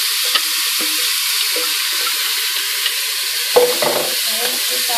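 Onion, ginger, garlic and chili mixture sizzling steadily in hot spiced oil in a steel pot while a silicone spatula scrapes and stirs it, with a short knock about three and a half seconds in.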